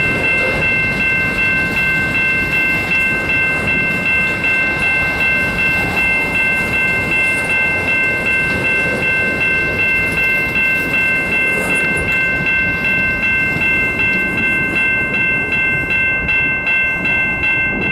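Railway crossing bell ringing in quick, even strokes, still going after the train has cleared. Under it, the last tank cars of a freight train roll past with wheel rumble and clatter.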